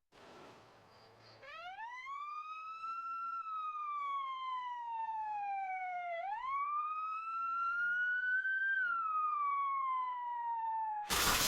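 A single wailing, siren-like tone that swoops up, sinks slowly, jumps back up about six seconds in, then sinks again. After a brief hiss at the start, it is cut off near the end by sudden loud bursts of static-like noise.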